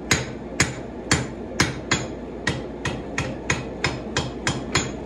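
Hand hammer striking a red-hot pattern-welded (Damascus) steel sword blade on an anvil, forging in the bevel. A steady run of sharp, ringing blows, about two a second at first, quickening to three or four a second in the second half.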